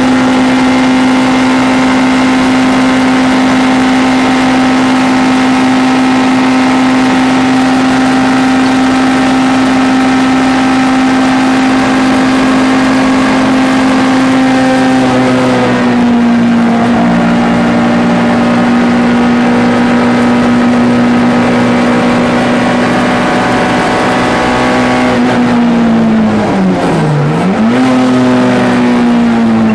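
MG ZR 105 race car's 1.4-litre four-cylinder engine running hard at high, steady revs. The pitch eases down slightly about halfway, then the revs dip sharply and climb back near the end.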